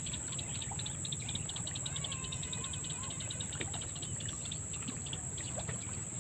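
Insect chorus: a steady high-pitched whine with rapid pulsing trills over it, and a few faint bird chirps.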